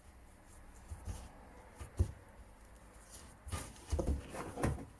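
Hands rubbing and pressing a piece of chicken into a dry flour and corn flour coating: soft patting and rustling, with a single knock about two seconds in and a run of soft pats near the end.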